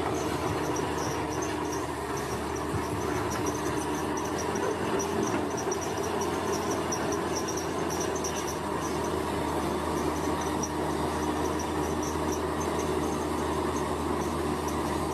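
Road construction machinery's engine running steadily with a low hum, while crickets chirp in rapid high pulses throughout.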